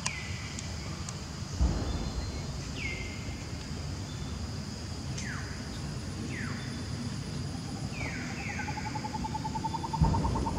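Forest ambience: a steady high insect hum, with repeated short, falling whistled bird calls spread through it and a rapid, even trill of about ten pulses a second starting past halfway. Two low thumps, one early and a louder one near the end.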